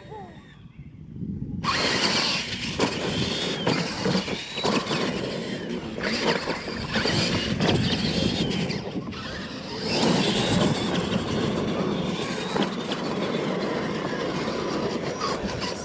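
R/C monster trucks launching off the line and racing on dirt: motors whining and tyres churning, starting suddenly about one and a half seconds in and running loudly after that.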